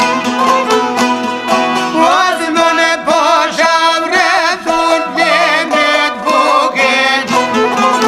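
Traditional Albanian folk music: plucked strings keep a steady strummed rhythm. From about two seconds in, a lead melody with strong vibrato rises over them, then drops back near the end.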